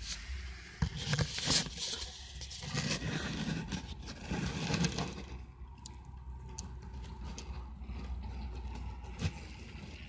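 Scraping, rustling and clicking handling noises over a steady low rumble. The noises are busiest in the first five seconds and settle down after about five and a half seconds.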